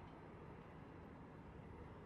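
Near silence: a faint, steady background rumble with no distinct events.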